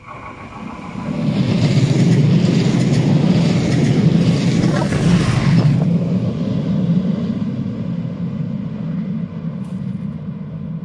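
Passenger train passing close by on the track, its wheels on the rails and a steady low hum swelling quickly about a second in. It stays loudest for several seconds, then slowly fades as the train runs into a tunnel.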